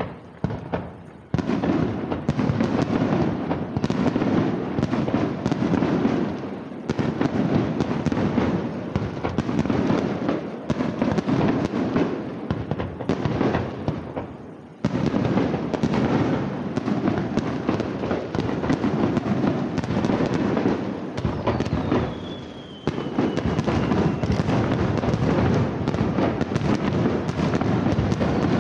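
Fireworks display: a dense, continuous barrage of shell bursts and crackle, with short lulls about a second in, halfway through and about three quarters of the way in. A high whistle glides downward shortly before that last lull and again at the very end.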